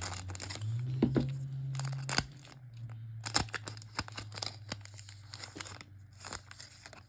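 A trading card pack wrapper being torn open and crinkled, in a run of sharp crackles, over a steady low hum.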